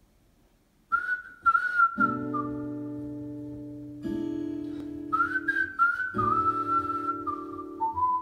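Music played back through a pair of HECO Victa 300 bookshelf speakers: a whistled melody comes in about a second in, over acoustic guitar chords struck every two seconds or so and left to ring.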